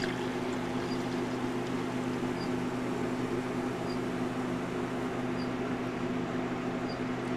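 BUNN two-bowl slush machine running with its freezing set to ice and its augers turning: a steady machine hum. Water pours in a thin stream from a plastic jug into one bowl.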